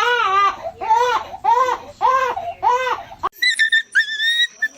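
A dog crying and whining, about six drawn-out rising-and-falling cries in a row. About three seconds in it cuts off suddenly to two high, thin whistle-like squeaks.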